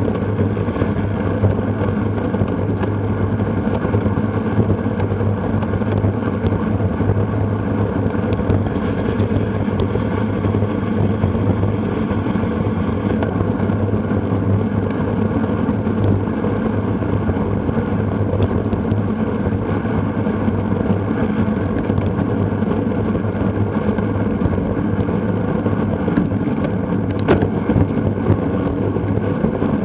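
Steady rush of wind and rolling road noise on a bicycle-mounted Garmin VIRB action camera's microphone while racing, with a brief click near the end.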